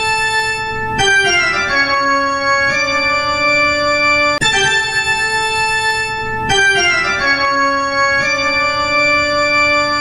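Halloween ringtone played on organ: held chords, then a run of notes stepping downward. The phrase loops about four and a half seconds in and plays again.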